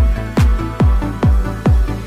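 Electronic background music with a steady kick-drum beat, about two and a half beats a second.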